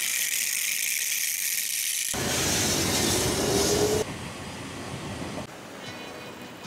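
Passenger train running on its rails: a broad rumble with a slowly rising whine, loudest for about two seconds in the middle, then continuing more quietly. It is cut in sharply after a high steady hiss at the start, and it gives way to faint outdoor ambience near the end.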